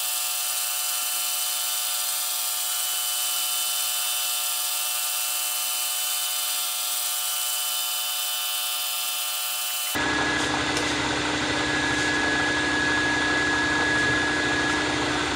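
Vertical milling machine running steadily while its boring head bores a precise hole in a metal lead screw mount, with several steady machine tones. About ten seconds in the sound switches abruptly to a louder, fuller motor hum with a high steady whine.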